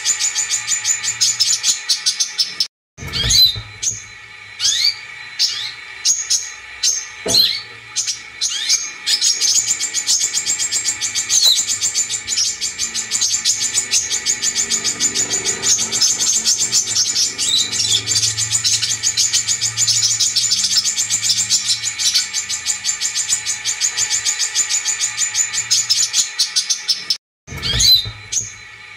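Brown-throated sunbird song played as a lure recording: a fast, high-pitched run of chirps and trills with sharp gliding call notes. It cuts out briefly twice, a few seconds in and near the end, as the recording loops.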